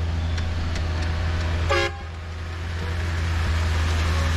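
A miniature-railway diesel-outline locomotive gives one short horn toot about two seconds in, over a steady low rumble. The train's running noise grows louder as it draws near.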